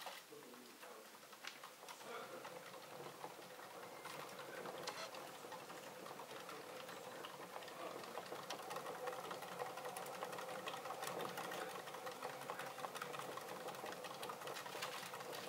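A wooden exercise wheel spinning as a pet rodent runs in it: a steady whirring hum with light clicks and rattles, growing louder over the first few seconds and then holding steady.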